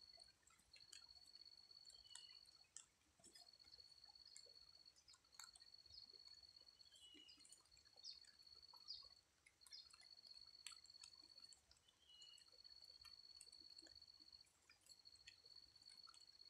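Faint scattered drips of rain, with a high, steady call about a second long repeating every second or two throughout.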